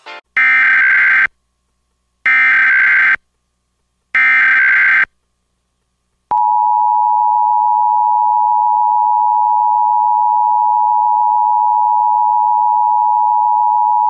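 Emergency Alert System tones: three short bursts of SAME digital header data, about a second each with short gaps, encoding a tornado warning, followed from about six seconds in by the steady two-tone EAS attention signal.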